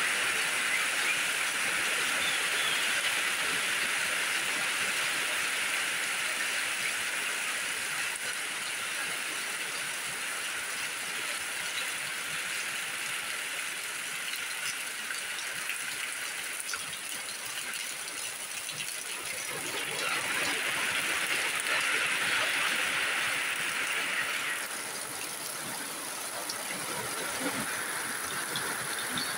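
Heavy rain, with water pouring from above and splashing into an overflowing plastic bin: a steady, dense rushing hiss. It dips briefly and then eases off about 25 seconds in.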